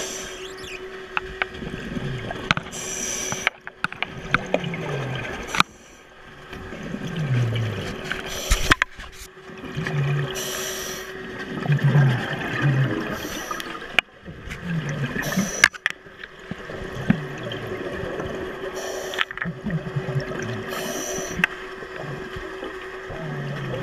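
A scuba diver breathing through a regulator underwater, in a cycle every two to three seconds: a short hiss on each inhale, then a gurgling rush of exhaled bubbles. A faint steady hum lies beneath.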